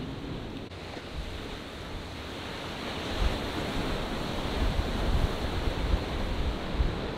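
Ocean surf washing and breaking, with wind buffeting the microphone in low rumbles that grow stronger about three seconds in.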